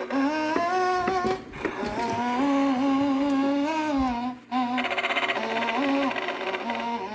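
Telco animated Mr & Mrs Santa display playing its sound track: a voice humming a tune in smooth, gliding notes.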